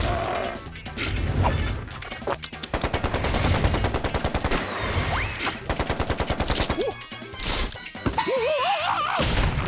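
Cartoon slapstick sound effects over music: a fast rattling run of rapid hits through the middle, then squeaky, wavering nonverbal character voices near the end.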